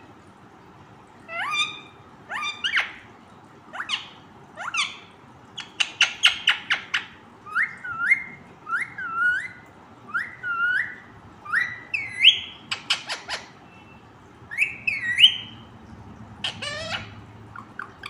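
Baby Indian ringneck parakeet calling: a long string of short squawks and whistled notes, many rising sharply at the end, with two quick rattling runs of rapid notes.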